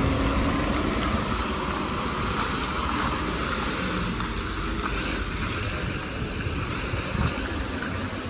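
Wind buffeting the phone's microphone, a steady rushing over a low engine rumble from the idling trucks in the yard.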